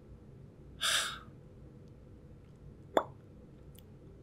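A short breathy exhale about a second in, then a single sharp plop with a quickly falling pitch, like a water drop, near the end.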